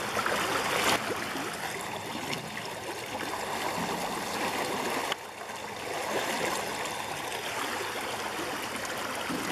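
Propeller wash from a Torqeedo Cruise 4.0 electric outboard churning and rushing the water as the boat moves, with a faint, steady, fairly low whine from the electric motor underneath. The level drops suddenly about halfway through.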